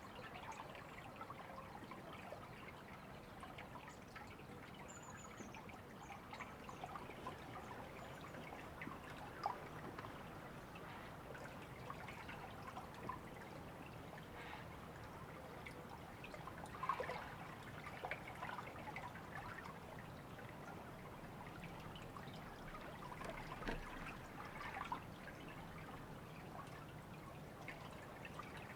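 Faint river water trickling and burbling steadily, with many small drips and splashes and a few louder splashes now and then.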